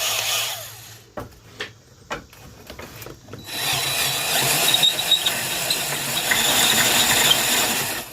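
Electric drill boring into a piece of steel. A short burst of drilling at the start and a few knocks, then the drill runs steadily under load from about three and a half seconds in.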